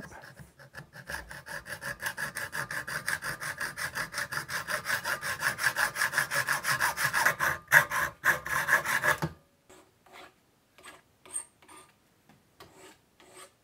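Hacksaw blade cutting through a metal shaft clamped in a vise, in fast, even back-and-forth strokes. The strokes stop abruptly about nine seconds in as the shaft is cut through, followed by a few faint clicks.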